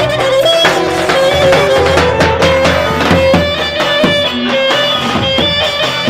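Roman havası dance music at full volume: a lead melody with bending, sliding notes over a steady drum beat, including the strokes of a large davul bass drum.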